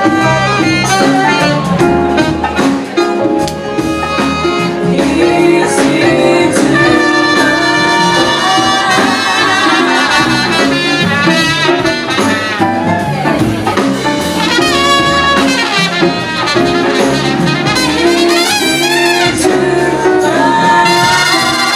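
Live jazz band playing an instrumental passage, a trumpet leading the melody over upright bass and drums.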